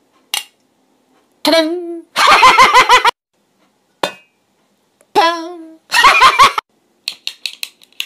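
A man's mouth-made imitation of object sounds: a short falling vocal tone, then about a second of rapid pulsing vocal noise, done twice, followed by a quick run of clicks near the end.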